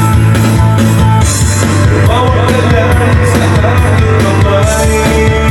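A rock song with singing over a steady beat, loud throughout; the sung melody comes in about two seconds in.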